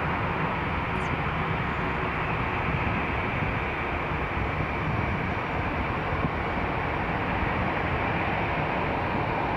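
Steady, unchanging noise of distant jet aircraft engines.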